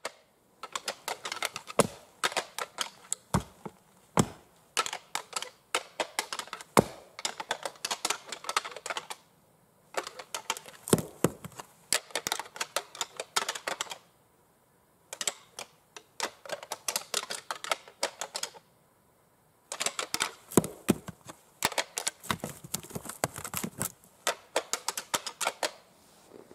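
Rattling antlers clashed and ground together in rapid runs of sharp clicks and knocks. There are four bouts of several seconds each with short pauses between, imitating two whitetail bucks fighting to call bucks in.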